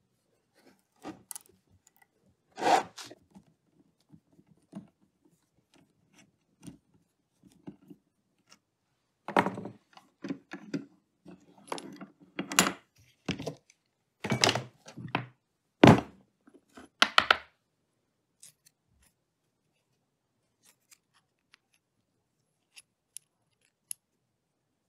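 Metal tools and a small metal part being handled at a steel bench vise: scattered clicks and knocks as a tap is worked and the vise jaws are opened, with a run of louder clunks from about ten to seventeen seconds in.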